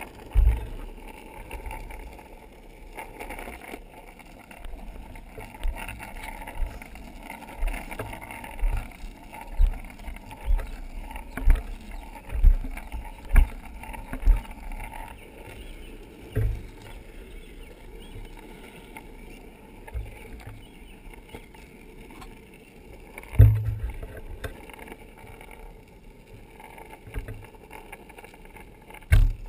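Longboard wheels rolling over rough, cracked asphalt: a steady rolling rumble and hiss. It is broken by low thumps, about one a second through the middle and two louder ones near the end.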